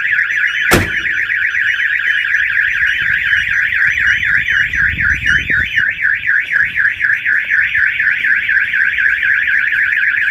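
Autopage aftermarket car alarm siren sounding, a fast rising-and-falling warble, set off by the door being opened. A single sharp knock about a second in.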